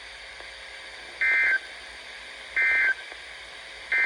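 Emergency Alert System end-of-message code on NOAA Weather Radio: three short, identical buzzy data bursts of two-tone SAME signal, about 1.4 s apart, over steady radio hiss. They mark the end of the tornado watch broadcast.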